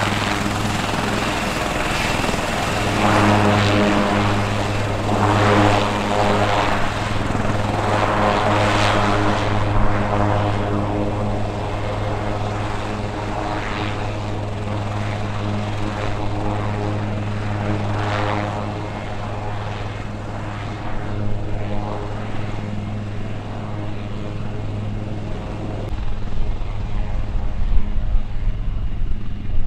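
HAL Light Combat Helicopter taxiing with its twin Shakti turboshafts and rotors running: a steady low drone under a rushing whine that swells and fades every few seconds. A low rumble grows near the end.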